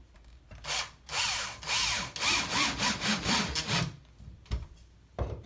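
Cordless drill driving a screw through a drywall patch, running for about three seconds with its motor pitch rising and falling. There is a short spin just before and another near the end.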